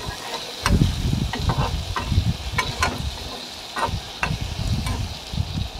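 Spatula stirring and scraping potato and pumpkin-peel strips in a metal karahi, with irregular clicks and knocks of the spatula against the pan over a faint frying sizzle.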